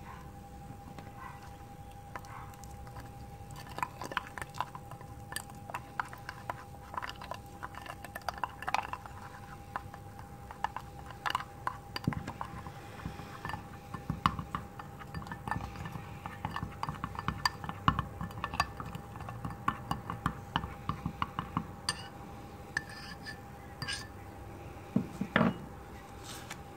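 Thin metal rod stirring a white powder into water in a glass jar, clinking and scraping against the glass in quick irregular taps. A louder knock comes near the end.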